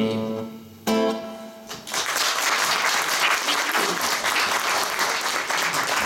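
Nylon-string acoustic guitar strums the closing chords of the song, twice, letting them ring; about two seconds in, audience applause starts and goes on steadily.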